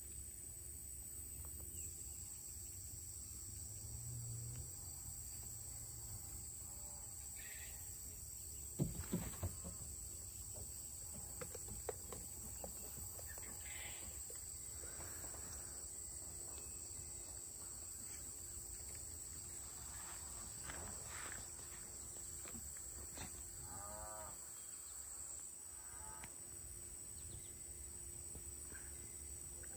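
Outdoor ambience with a steady high insect drone over a low hum, a cluster of sharp knocks about nine seconds in, and a few short pitched animal calls later on.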